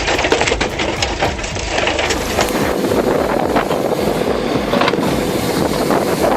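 Engine of a wood-processing machine running steadily. The sound changes character about two seconds in.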